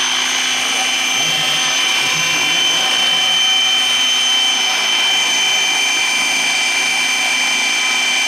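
Radio-controlled scale MD 500 model helicopter hovering low and setting down, its motor and rotor giving a steady high whine.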